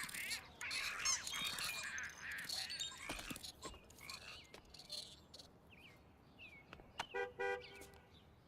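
Cartoonish video-game sound effects: a busy run of squeaky, warbling chirps over the first three seconds, then a few sparse chirps. About seven seconds in come two short horn-like toots.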